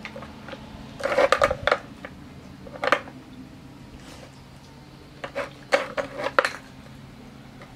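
Hard plastic puzzle-feeder cups and bowl knocking and clattering as a dog noses and pushes them on paving stones. The clicks come in three bunches: a quick cluster about a second in, a single knock near three seconds, and another cluster between five and six and a half seconds in.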